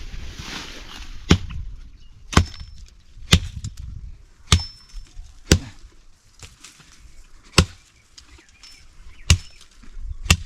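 A blade chopping into the wood of small trees being cut down: about eight sharp chops at uneven intervals, roughly one a second, some with a brief metallic ring.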